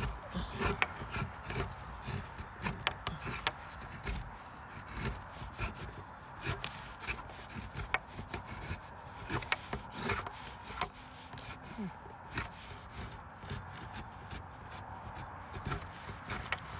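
Knife blade shaving thin curls off a wooden stick to make a feather stick: a run of short scraping strokes of the blade along the wood, about one or two a second.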